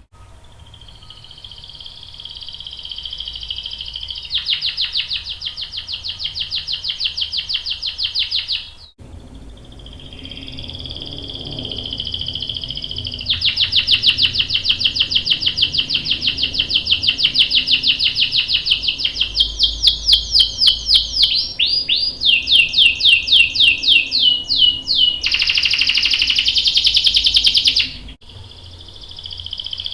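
Domestic canary singing a long, high-pitched song of rapid rolls and trills, changing its pattern of repeated notes several times. The song breaks off abruptly about nine seconds in and again near the end.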